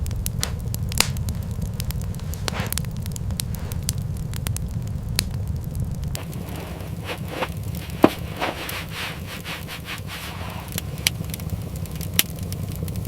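Fire crackling, with irregular sharp pops and a few louder snaps over a steady low rumble.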